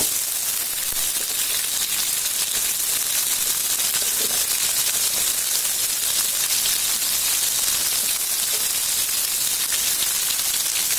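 Hot oil sizzling and crackling steadily in a wok as freshly added cut long beans fry in it.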